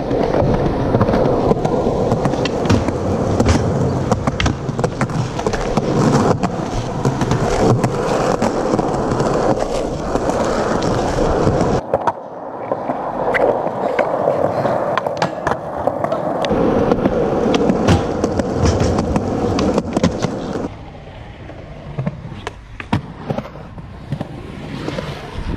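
Skateboard wheels rolling over concrete, with many sharp clacks of the board snapping and landing. The rolling breaks off abruptly about halfway, then carries on, and turns quieter for the last few seconds.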